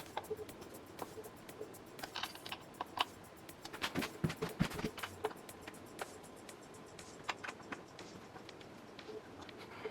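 Allen wrench tightening bolts into a gaming chair frame: a run of irregular light clicks and taps, busiest about four to five seconds in.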